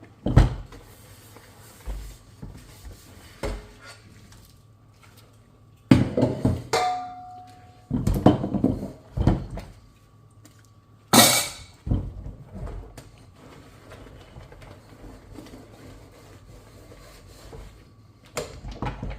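Dishes being handled and washed at a sink: scattered knocks and clinks of crockery, one clink ringing briefly about seven seconds in, and a short burst of rushing noise about eleven seconds in.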